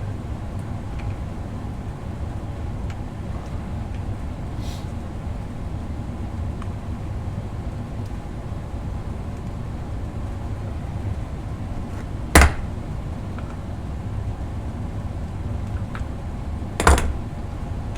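Two sharp snaps about four and a half seconds apart, late on, as a pry tool breaks parts loose from a lithium-ion battery pack being torn down, over a steady low furnace hum.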